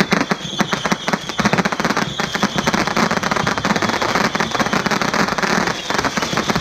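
Ground-launched fireworks firing in quick succession: a dense, continuous run of pops and crackle, with a thin high whistle running through it.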